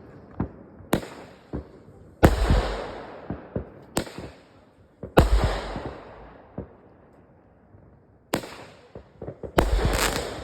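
Consumer fireworks going off: about six loud bangs a second or two apart, several of them trailing crackling that dies away.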